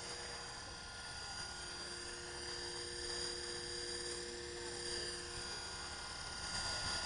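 Blade 330X electric radio-controlled helicopter hovering low, its motor and rotors giving a steady, faint whine of several held tones.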